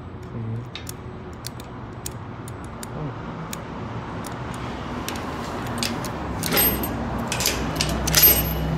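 Chain and lock hardware being handled at a metal mesh gate: metallic jangling and clinking that grows busier and louder over the last few seconds, over a low steady hum.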